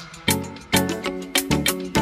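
Background music with a steady beat: sharp percussion hits about twice a second over pitched instrument notes.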